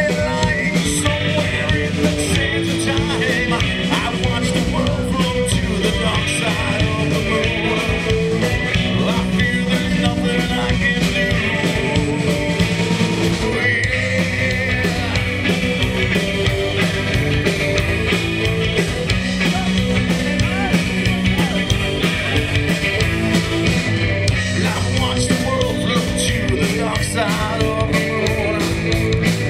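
Live rock band playing a song with singing, loud and continuous.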